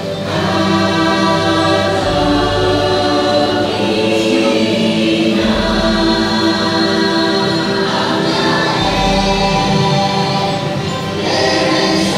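Dark-ride soundtrack music: a choir chanting over sustained chords, with a deep low note coming in about every three seconds.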